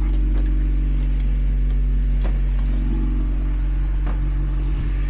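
1998 Honda Civic's engine idling steadily, a constant low hum.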